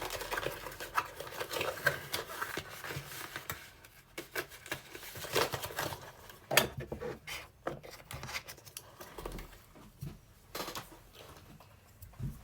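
Hands handling a boxed toy and its packaging: rustling and scraping, then scattered irregular clicks and snaps, the sharpest about six and a half seconds in.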